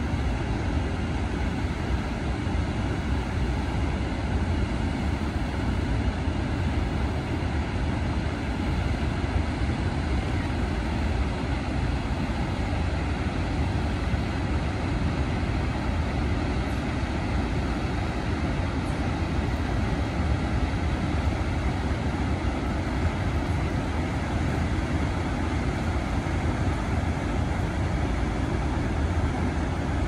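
Steady, even rush of falling water from Ohiopyle Falls, a broad waterfall on the Youghiogheny River.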